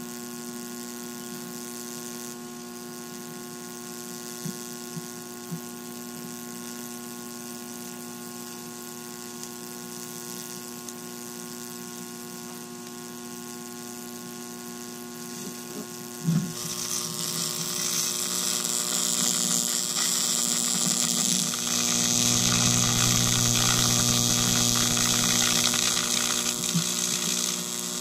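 A 12,000-volt high-voltage supply buzzes steadily, with a few faint snaps, as its electrode touches the end of an AA battery. About sixteen seconds in a sharp crack sets off a continuous sizzling arc between the electrode tip and the battery. The arc grows louder over several seconds, holds, and eases off just before the end.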